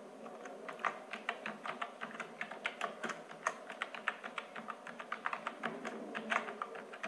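Typing on a computer keyboard: a quick, irregular run of key clicks that starts about half a second in.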